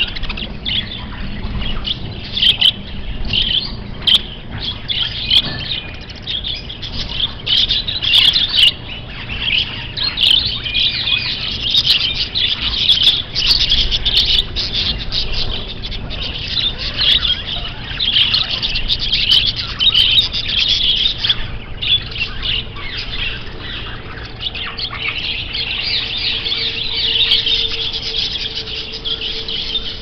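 A large flock of caged budgerigars chattering: dense, continuous high chirps and warbles with no pauses. A faint steady hum comes in about two thirds of the way through.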